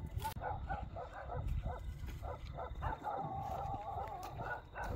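A dog barking repeatedly, several barks a second, with one longer wavering call about three seconds in.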